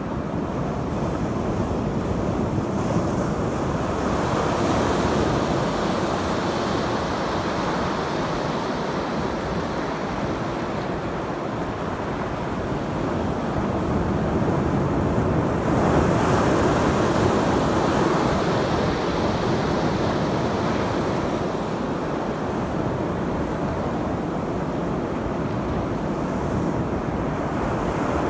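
Ocean surf washing in over rocks: a steady rush of waves that swells louder a little past halfway as a bigger wave breaks.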